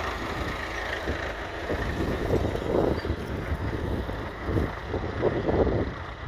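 1959 Massey Ferguson 35's 2.3-litre four-cylinder diesel engine running under load as the tractor works, a steady low rumble with louder surges about halfway through and again near the end.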